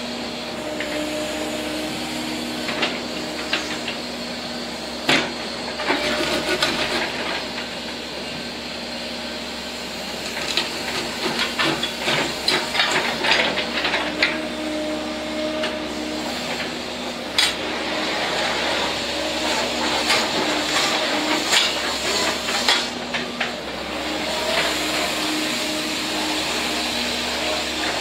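Sumitomo SH120 hydraulic excavator running while its boom, arm and bucket are worked and the upper structure swings: a steady engine hum with a hydraulic tone that comes and goes in spells as the controls are moved, and many sharp metallic knocks and clicks.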